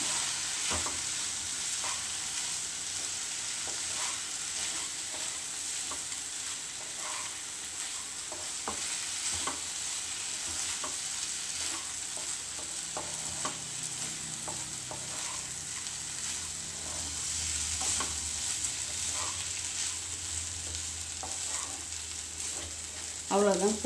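Wooden spatula stirring and scraping beetroot mixed with roasted peanut powder in a nonstick kadai, with short scraping ticks over a steady sizzle of the mix frying. This is the final fry once the peanut-cumin powder is stirred in, shortly before the pan comes off the heat.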